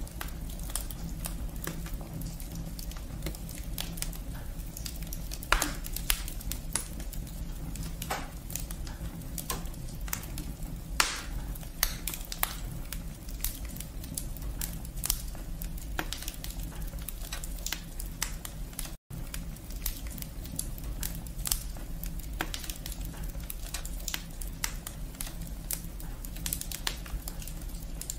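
Wood fire burning in a brick fireplace, crackling with frequent irregular sharp pops from the burning logs and twigs over a steady low rumble of the flames.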